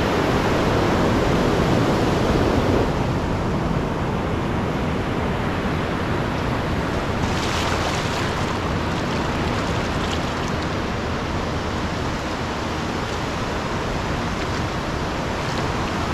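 Ocean surf breaking and washing up a sandy beach, a steady rush with a brighter hiss of wash about halfway through.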